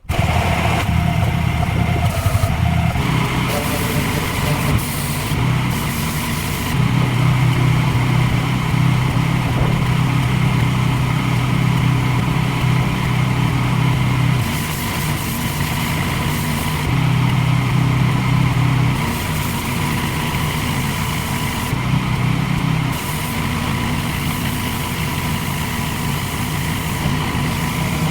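Pressure washer running and spraying: a steady motor hum whose pitch shifts every few seconds, with a hiss of spray that comes and goes.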